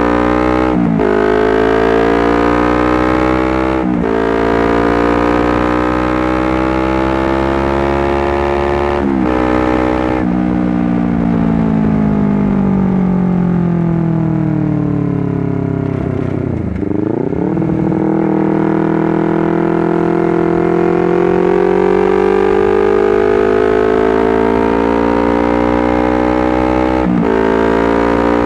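Honda CBR250RR motorcycle engine pulling hard through the gears: the pitch climbs and breaks off sharply at each upshift, about a second in, at four and at nine seconds. It then falls away steadily as the bike slows, with a quick dip on a downshift around seventeen seconds. After that it climbs again with another upshift near the end.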